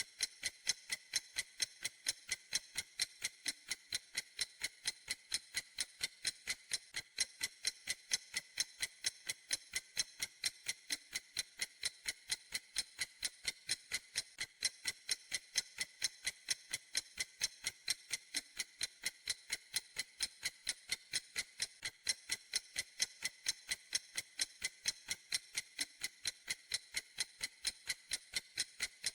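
Ticking clock, a steady run of even, crisp ticks at a few ticks a second.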